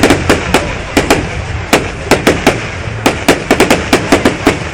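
Fireworks going off: a fast, irregular run of sharp bangs and cracks, about four a second, some bunched in quick clusters, over a steady low rumble.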